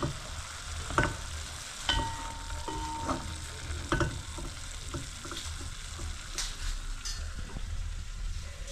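Meat sizzling as it fries in a pot, with a steady hiss, while a spoon stirs it and knocks against the pot several times in the first half.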